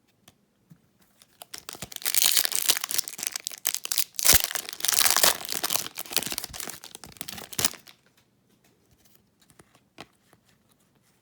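Foil wrapper of a hockey card pack being torn open and crinkled for about six seconds, then a few faint ticks of cards being handled.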